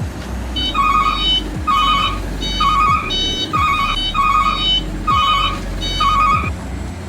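An electronic warbling alert tone sounding in seven short bursts about a second apart, like a ringtone, over a steady low rumble.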